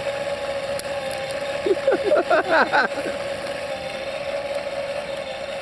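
Motor of a motorized fire-tornado rig running steadily, spinning the platter under the flame with an even hum at one pitch.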